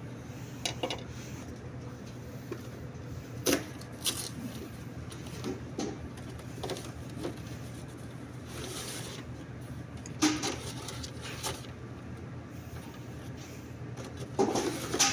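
Handling of a cardboard filter box and a new paper oil filter element: scattered knocks and clicks, with a brief rustle of cardboard midway as the element is slid out of the box, over a steady low hum.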